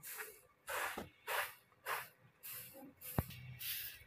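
A short grass broom sweeping straw scraps across a brick floor in repeated swishes, about one to two a second. There is a sharp knock about three seconds in.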